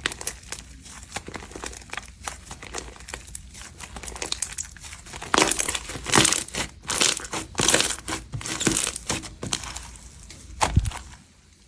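Crunchy slime being squished and mixed, a stream of crackling pops and sticky clicks. The crackling turns louder and denser about halfway through, then eases off near the end.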